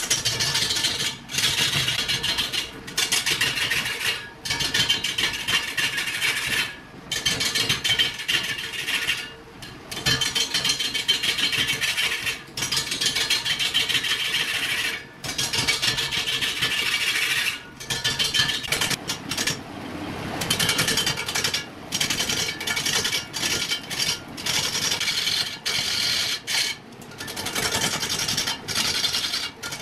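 A long-handled turning gouge cutting into a large log spinning on a wood lathe: a hissing scrape of shavings being peeled off. It comes in stretches of one to three seconds broken by many brief gaps.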